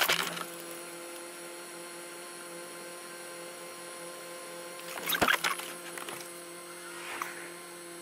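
Steady hum inside a stationary car, with a brief knock about five seconds in and a fainter one near seven seconds.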